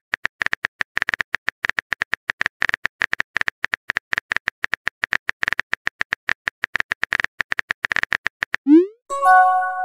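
Simulated phone-keyboard typing clicks from a texting-story app, several quick taps a second as a message is typed out. Near the end comes a rising swoop, then a short chime as the message is sent.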